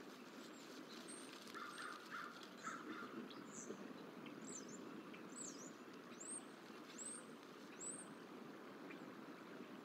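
Crows cawing three times in the distance, followed by a small bird's thin, very high call, each one falling in pitch, repeated five times about once a second, over steady outdoor background noise.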